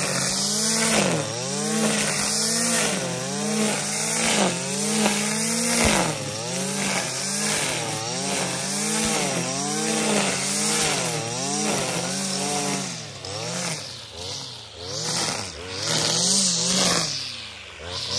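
Stihl FS 460-C brushcutter's two-stroke engine running at high revs while its 3.3 mm nylon trimmer line cuts fresh grass. The engine note dips and recovers about once a second as the line bites into the grass. In the last few seconds the revs drop and climb more deeply, and the loudness swings up and down.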